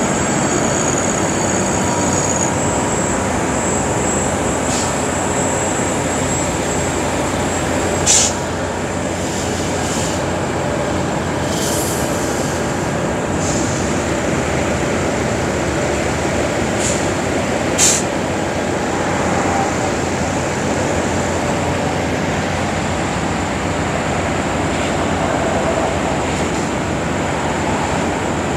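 Concrete mixer truck running, a steady heavy mechanical rumble, with two short sharp knocks about eight and eighteen seconds in.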